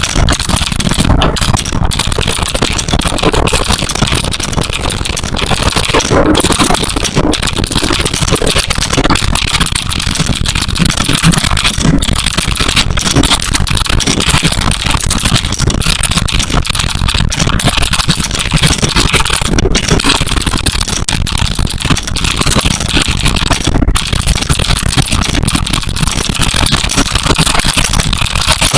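Fast, continuous typing on a Geonworks Frog mechanical keyboard: a dense stream of keystrokes with no pauses.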